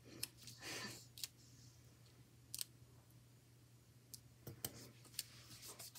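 Faint, scattered clicks and a brief rustle of a paper sticker being handled and pressed onto a planner page with the fingertips.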